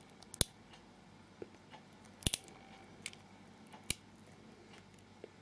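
A few sharp, isolated metal clicks and taps from handling a six-pin Euro cylinder lock and the tools working it: one about half a second in, a quick double click just after two seconds, and another near four seconds.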